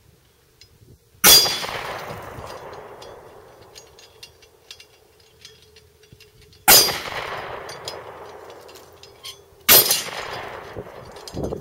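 Three 9mm gunshots from a Hi-Point, one about a second in, one past the middle and one near the end. Each is followed by the clang of a steel plate on a spinning target rack, a lingering ring, and light metallic rattling as the hit plates swing and flip on their pivots.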